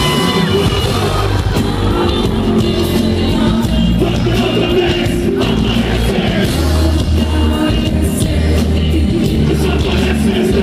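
Live hip-hop band playing loudly: a steady pulsing bass beat and drums, with a man's voice rapping and shouting into a microphone over the top.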